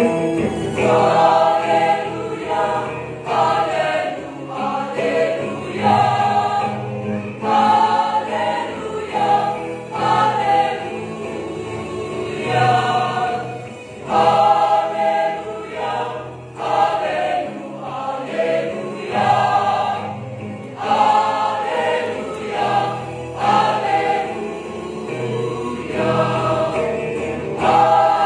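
Mixed church choir singing a gospel hymn in parts, the sung phrases swelling and breaking every second or two.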